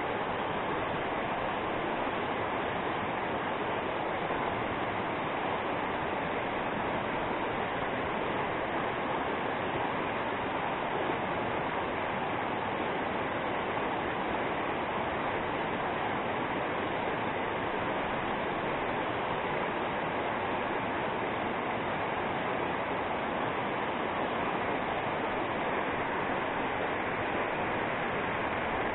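Fast, rocky river rushing through white-water rapids: a steady, even rush of water.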